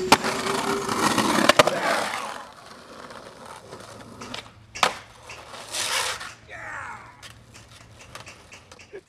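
Skateboard landing and rolling: a sharp clack of the board hitting the ground at the start, another about a second and a half in, wheels rolling over pavement, then another sharp clack of a pop or landing a little before five seconds in, followed by more rolling.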